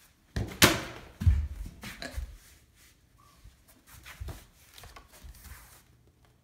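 A plastic water bottle and a soccer ball knocking and thudding onto a tile floor, the loudest knock about half a second in and a heavy thud just after, followed by lighter knocks and scuffs as they roll and settle.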